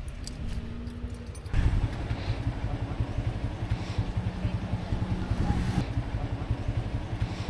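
A motor vehicle's engine running close by, with a low, fast-pulsing rumble. It comes in suddenly about a second and a half in.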